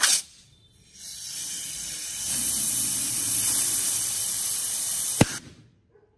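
Air spray gun fed by an air compressor, triggered in a short burst, then blowing a steady hissing spray for about four seconds that cuts off with a click.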